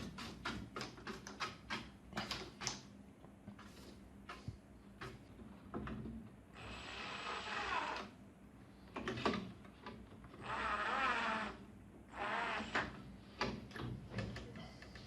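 Clicks and knocks of the power supply board being handled into the TV's metal chassis, then a screwdriver driving the screws home in several whirring bursts.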